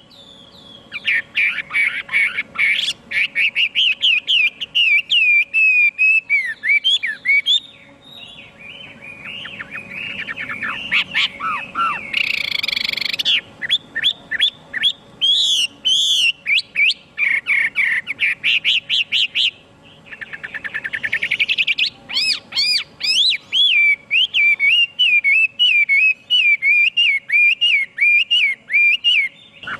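Chinese hwamei (họa mi) singing a long, loud, varied song of rapid repeated whistled notes and trills. The song goes quieter for a few seconds about a third of the way in, and a fast run of notes speeds up about two-thirds through.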